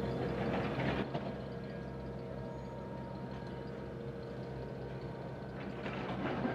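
Aircraft tow tractor's engine running steadily as it pulls a warbird on a tow bar, with a louder noisy patch about a second in and again near the end.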